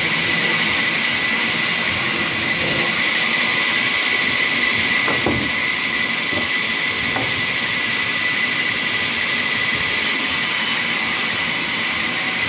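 Sawmill machinery running steadily, with a constant high whine over a broad rushing noise.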